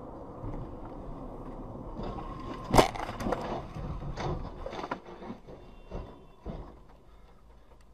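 Road noise inside a moving car, then a loud crash about three seconds in as an SUV ahead collides, followed by a string of knocks and clatter that die away as it rolls over onto its roof.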